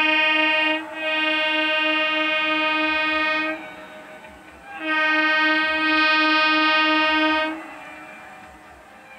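EMU local train's horn sounding in three long steady blasts: the first ends just under a second in, the second lasts about two and a half seconds, and the third about three seconds after a short pause.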